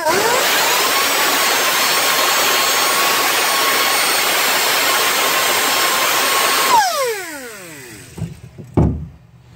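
Air-powered die grinder with a small wire wheel spinning up to a steady high whine over heavy air hiss, scrubbing the rusted head of a seized truck bed bolt. About seven seconds in it is released and spins down with a falling whine, and a single knock follows near the end.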